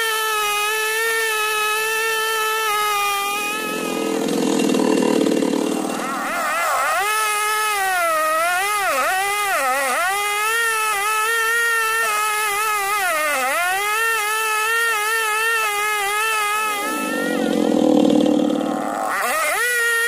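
Petrol chainsaw running at high revs and cutting into a tree trunk, its pitch dipping again and again as the chain loads up in the wood and then recovering. Twice, a bit after the start and again near the end, a rougher, lower noise takes over for about two seconds.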